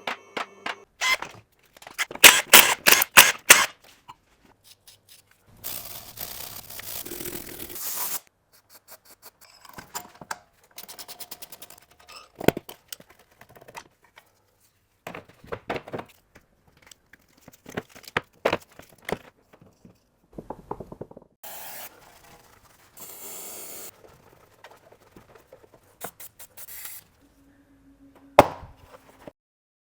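Tools working on a car's front suspension: a run of rapid loud clicks, scattered knocks and scrapes, and two stretches of hissing noise, with a sharp knock near the end.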